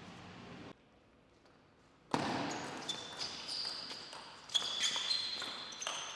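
Table tennis rally: the celluloid/plastic ball clicks in quick succession off the bats and the table. High squeaks from sports shoes on the court floor run through it. The rally starts abruptly about two seconds in, after a short stretch of near quiet.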